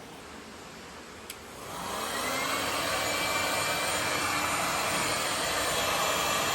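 Heat gun switched on with a click about a second in, its fan motor spinning up with a rising whine and then blowing steadily.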